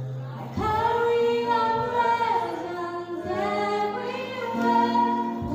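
A group of voices singing a hymn in held, sustained notes, with a low steady tone underneath near the end.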